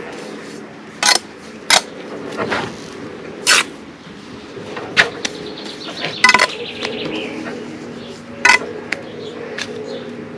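Steel bricklaying trowel scraping and clinking against mortar and concrete blocks, about six sharp strokes spread irregularly, with one longer scrape about six seconds in. A steady low hum runs underneath.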